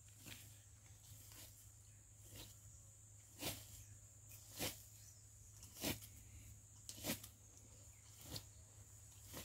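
Footsteps on dry leaf litter: a short crunch about once every second or so, loudest near the middle, over a steady faint high hiss.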